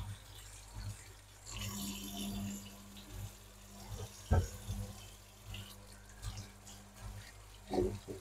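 Kitchen tap running into a stainless-steel sink while an apple is rinsed under it, with a sharp knock about four seconds in.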